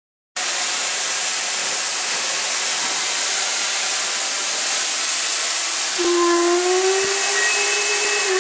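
Steam hissing loudly and steadily from low down on LMS Princess Royal class 4-6-2 No. 6201 Princess Elizabeth, around its cylinders and driving wheels. About six seconds in, a steady tone joins the hiss, rising slightly in pitch.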